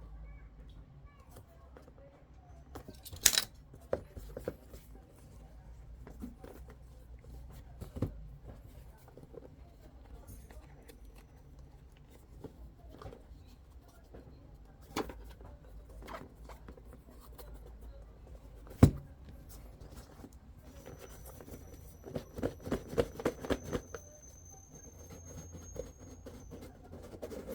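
Unboxing handling noise: scattered clicks, taps and knocks from a mini PC's box and packaging being opened and handled, with a quick run of clicks near the end. A faint, thin, steady high whine runs under the last few seconds.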